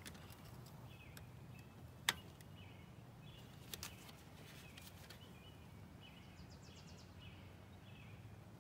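Quiet outdoor background with small birds chirping faintly and a rapid little trill near the middle. A sharp metallic click about two seconds in and a fainter one near four seconds come from snap ring pliers working at the snap ring inside the tractor's front axle knuckle.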